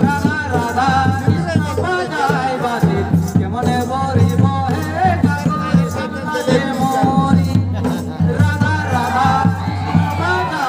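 Jhumur folk music: a voice singing a wavering melody over steady, dense drum beats.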